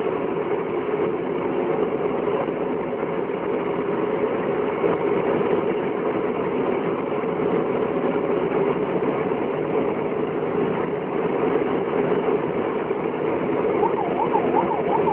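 Steady engine and road noise of a convoy vehicle driving at speed, heard from inside the cab. Near the end a faint rapid up-and-down wail, like a yelping siren, rises over it.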